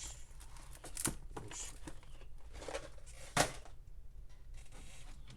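Scattered light clicks and rustling from small objects being handled, with one sharper click about three and a half seconds in.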